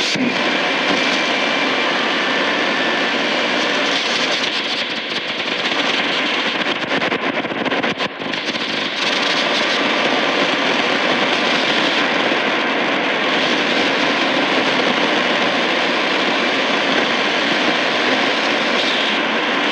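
Shortwave static and hiss from a Tecsun PL-880 receiver as it is tuned across empty frequencies in the 41-metre band. A few faint steady tones sit in the hiss, and there is a brief drop about eight seconds in.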